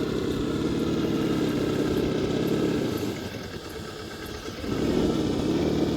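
Electric motor and gear drivetrain of an Axial SCX10 II Deadbolt RC rock crawler whining as it climbs over rock, the pitch wavering with the throttle. It drops quieter about three seconds in and picks up again near the end with a rising pitch.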